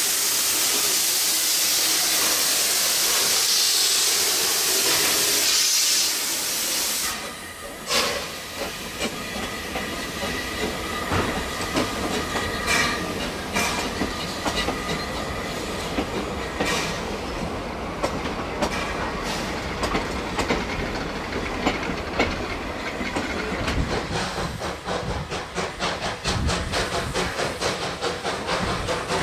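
Two small steam tank locomotives, F 13 and D 140, pulling away with a passenger train: a loud, even hiss of steam from the cylinders for the first several seconds, then the hiss drops away and the wheels of the passing carriages click over the rail joints, with a rumble beneath.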